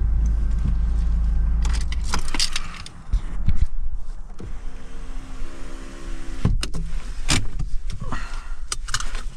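Car sounds: the engine's low rumble stops about three seconds in, followed by several clicks and knocks and a steady motor hum lasting about two seconds.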